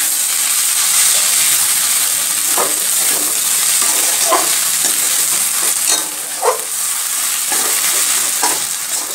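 Chopped snake gourd and scrambled egg sizzling in a metal wok while a spatula stirs the mixture. Over the steady sizzle, the spatula scrapes the pan every second or two.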